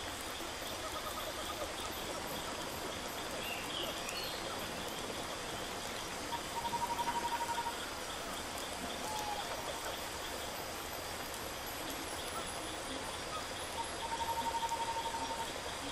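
Steady rush of running water, with a rapid, even trill at a middle pitch heard twice, about six seconds in and again near the end.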